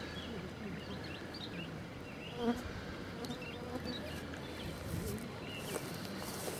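Insect buzzing, louder for a moment about two and a half seconds in, with a few faint short high chirps.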